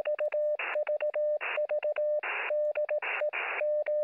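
Morse code: a steady beeping tone keyed on and off in short dots and longer dashes, heard through a radio receiver, with static hiss rising in each gap between the beeps.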